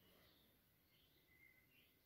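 Near silence: faint background noise with a few faint, short high-pitched sounds.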